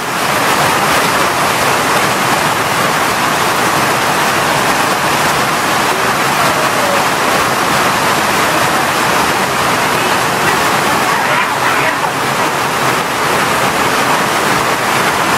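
Heavy rain pouring down in a thunderstorm downpour, a steady loud hiss.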